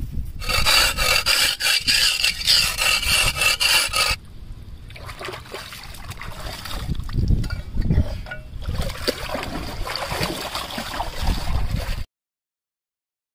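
A rough, rasping scrape made of quick repeated strokes for about four seconds, then quieter water splashing and sloshing as a hand works in the water, with a few low thuds. The sound cuts off suddenly near the end.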